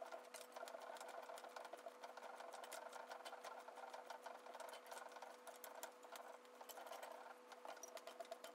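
Faint steady electrical hum under a continuous fine, fast rattle of a small running machine.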